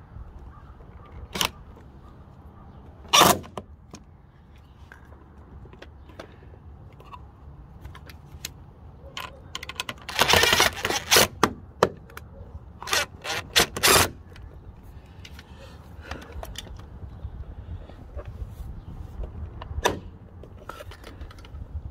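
DeWalt 20V cordless driver running in short bursts as it drives screws through a transducer mounting bracket into an aluminum boat transom, the longest burst lasting a second or two about halfway through, with a few shorter ones after it. Sharp clicks and clanks of the metal bracket and hardware being handled come before it.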